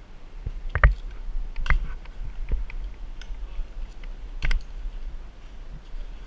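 Scattered sharp clicks and knocks of tree-climbing hardware: carabiners, a metal rigging device and rope being handled against a palm trunk. The loudest come about a second in and at about four and a half seconds.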